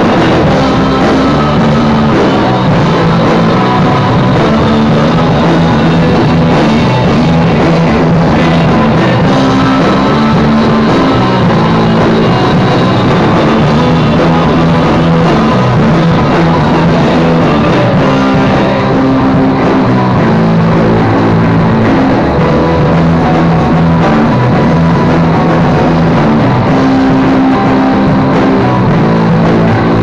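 Rock music: a Cort M200 electric guitar playing chords over bass and drums, loud and continuous.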